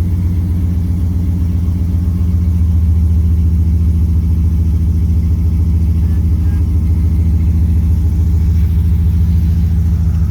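Ram 1500 pickup's exhaust running at idle: a steady, deep low rumble that gets slightly louder about two and a half seconds in.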